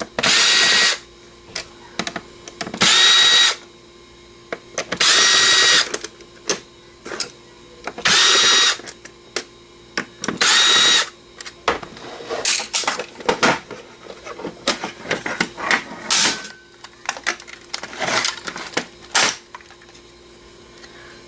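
Power drill running in five short bursts, about one every two and a half seconds, backing screws out of a PC DVD drive's casing. After that come many short clicks and knocks from the drive's metal and plastic parts being handled.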